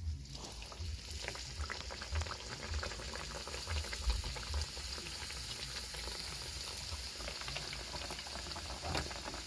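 Fry bake dough frying in hot oil: a steady sizzle full of fine crackles.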